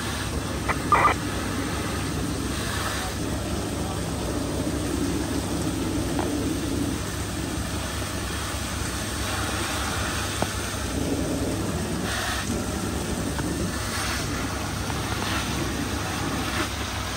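Steady drone of fire apparatus engines running at a working fire, with a short, loud blip about a second in.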